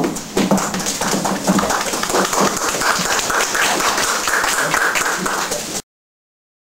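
Audience applauding, a dense run of clapping that cuts off suddenly near the end.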